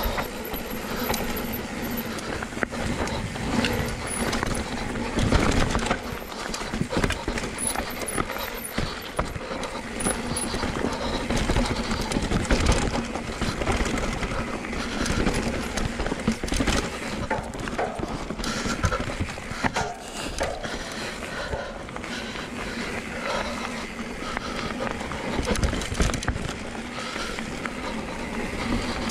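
Cube Stereo 170 enduro mountain bike riding fast down a dirt singletrack. Knobby tyres roll over dirt, roots and leaves, and the frame, suspension and chain rattle and knock over the bumps without a break.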